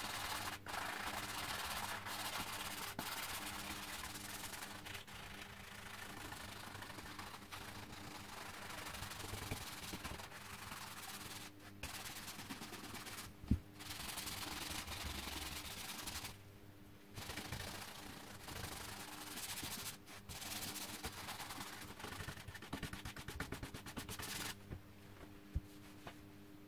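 A stiff hand brush scrubbing fast back and forth along the wooden stock of a musket, a dense rasp with a few short breaks. There is one sharp knock about halfway through, and the scrubbing stops a couple of seconds before the end.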